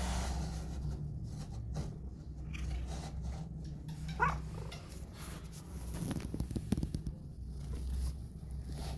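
Calico mother cat purring with a steady low rumble while her two kittens nurse, with scattered soft clicks and rustling from her grooming and the kittens moving. A brief high squeak about four seconds in.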